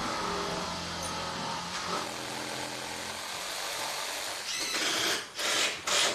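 Machinery noise: a steady motor hum over a wide noisy wash for about three seconds, then several short hissing bursts near the end.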